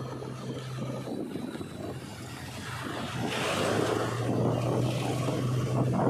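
JCB 3DX backhoe loader's diesel engine running steadily as it drives along the road, with tyre and road noise. The noise swells louder from about halfway through.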